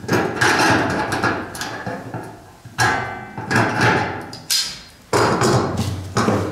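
Hand stud crimper punching and clinching galvanized steel drywall track and stud together: three sharp metallic clacks, a little over two seconds apart, each leaving the thin steel profile ringing briefly.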